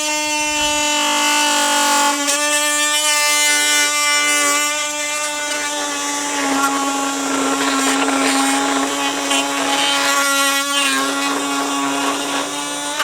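Oscillating multi-tool running with a wide Spyder bi-metal plunge blade, a steady high whine. From about six seconds in, a rough rasping noise is added as the blade cuts. The tool stops at the very end.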